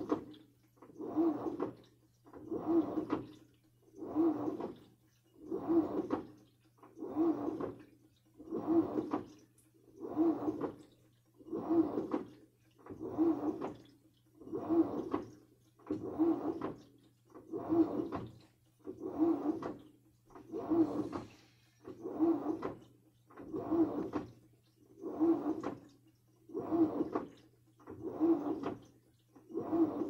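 Samsung washing machine in its wash cycle, water and a wet comforter sloshing in the drum. The sloshing comes in rhythmic surges, one about every second and a half, over a steady low hum.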